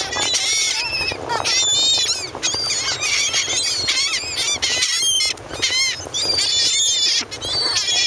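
A flock of gulls calling at close range: a dense, unbroken stream of short, high, overlapping cries from many birds at once.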